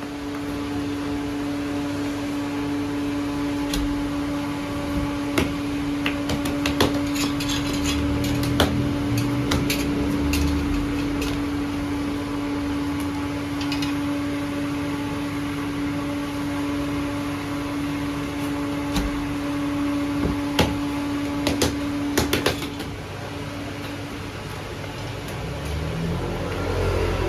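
A steady mechanical hum, like a small motor running, with scattered clicks and knocks over it; the hum stops about 23 seconds in.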